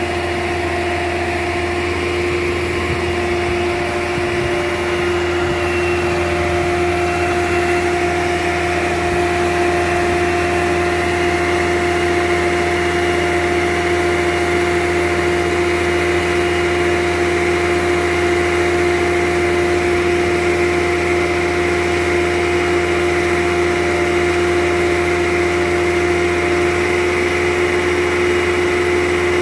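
An engine running steadily at an even speed, with a constant whine over a low hum. The level rises slightly over the first several seconds.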